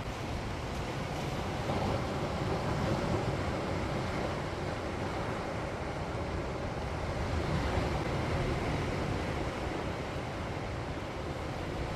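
Sea waves washing on the shore, swelling twice, about two seconds in and again around seven seconds, with a low rumble of wind on the microphone.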